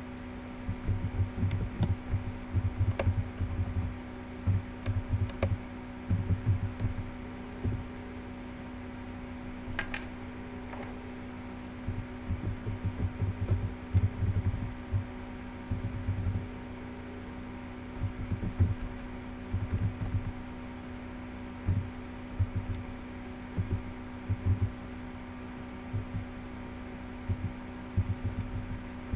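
Typing on a computer keyboard: runs of quick key taps broken by short pauses, over a steady low hum.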